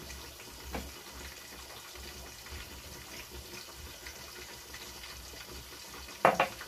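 Steady hiss of chicken frying in oil in a covered pan on a gas stove. A faint click comes under a second in, and a single sharp clack near the end.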